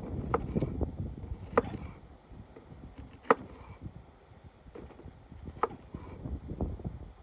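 Sharp wooden cracks and knocks, four clear ones a second or two apart and some fainter ones, over a low steady rumble.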